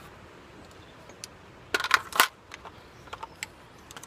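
Suppressed short-barrelled AR-15 in .223 with a SilencerCo Saker 556 firing about two seconds in: a quick cluster of sharp cracks and metallic clinks, with a few light clicks scattered around it.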